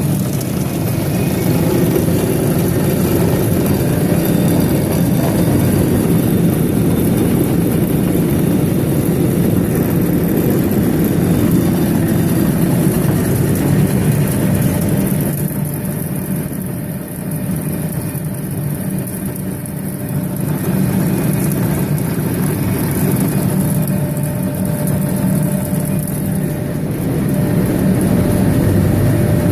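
Mill machinery running: a loud, steady mechanical drone with a low hum and a faint steady whine. It eases off slightly about halfway through, then comes back up.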